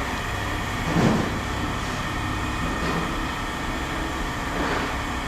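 Steady engine hum of an idling vehicle, with a brief louder sound about a second in.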